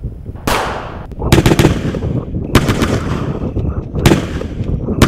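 Gunshots in a series: a single shot, a rapid burst of several, then three more single shots about a second or more apart, each trailing off in an echo.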